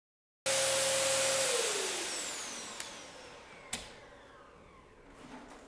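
Dyson upright vacuum cleaner running, then switched off about a second and a half in, its motor winding down with a falling whine and a hiss that fades away over several seconds. Two sharp clicks come during the run-down.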